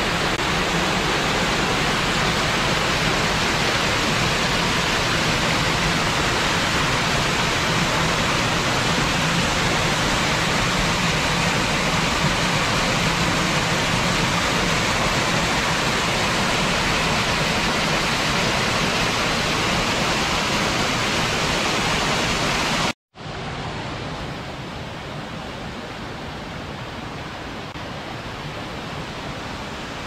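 A loud, steady rushing noise with no distinct events. It breaks off abruptly for a moment about three-quarters of the way through and returns quieter.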